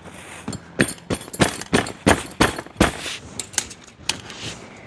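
An irregular run of sharp clicks and knocks, about a dozen over four seconds, like hard parts being handled and tapped together.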